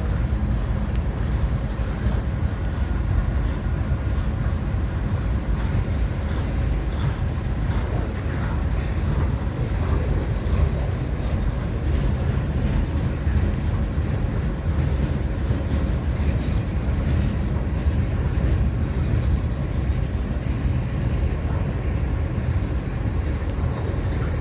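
A Florida East Coast Railway freight train's cars rolling past: a steady low rumble of steel wheels on the rails.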